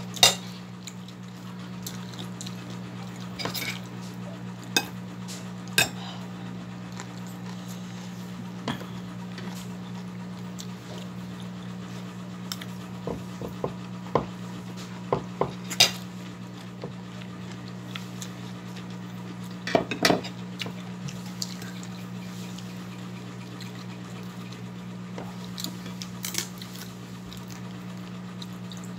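Dishes being handled during a meal: scattered sharp clinks and knocks of a glass bowl and plate on the table, over a steady low hum.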